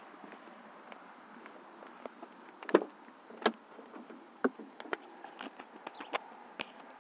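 Faint steady hiss with about a dozen sharp clicks and knocks, the loudest a little before three seconds in and at about three and a half seconds. This is handling noise on the FPV quad's camera while the quad sits still with no motor whine.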